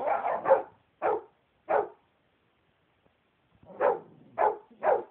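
Dog barking at a blow dryer in short, sharp barks: a quick run of three, two single barks, a pause of about two seconds, then three more near the end.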